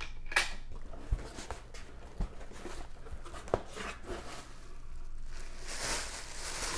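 Cardboard box being opened by hand: flaps pulled back, with a few sharp knocks and scrapes. From about five and a half seconds in, plastic shopping bags used as packing rustle and crinkle as they are pulled out of the box.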